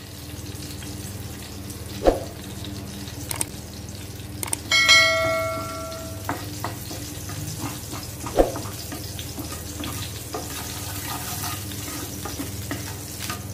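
Fennel and cumin seeds sizzling in hot oil in a metal frying pan while a spoon stirs them, with two sharp knocks of the spoon on the pan, about two and eight seconds in. About five seconds in, a bell-like ding rings for a second or so.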